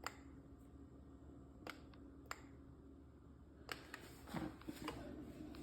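Quiet room tone with a low steady hum and a few faint sharp clicks, about three in the first half, and some soft brief handling sounds near the end.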